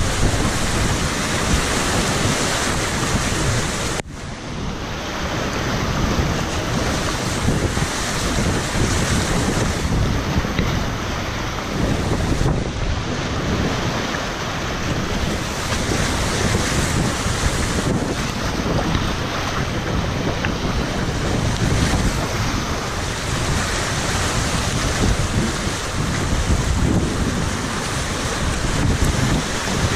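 Whitewater rapids rushing loudly around a kayak, heard close from the boat. About four seconds in the sound drops sharply, then builds back within a second or two.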